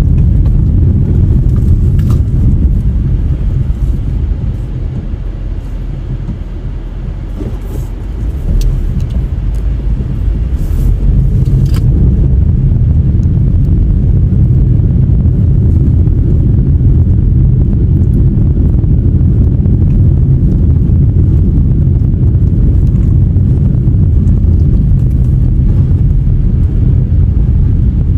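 Car being driven, heard as a steady low rumble of engine and tyre noise; it drops for a few seconds about four seconds in and builds back up by about nine seconds.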